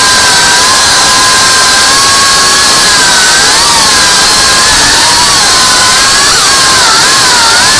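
FPV quadcopter's motors and propellers heard from the onboard camera: a loud, steady buzzing whine with a hiss, its pitch wobbling up and down a few times after the middle.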